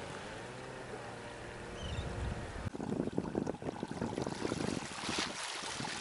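Small waves splashing and washing against the rocks of a breakwater, with wind buffeting the microphone; for the first couple of seconds there is only a quieter, even hiss with a faint steady hum, and the rough splashing comes in about three seconds in.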